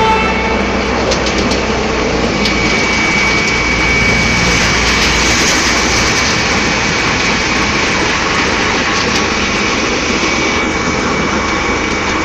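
Electric-motor-driven concrete mixer pump running steadily, with a thin steady whine joining about two and a half seconds in.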